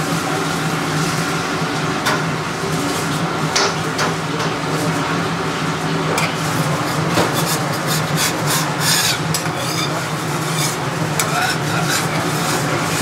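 Metal spatula scraping and tapping on a dosa griddle over a steady low kitchen hum. The short scrapes and clinks come thicker from about halfway in.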